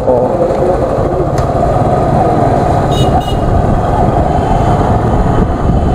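Bajaj Pulsar 135 LS motorcycle's single-cylinder engine running under way, with steady road and wind noise on the bike-mounted microphone. Two short high horn toots sound about three seconds in.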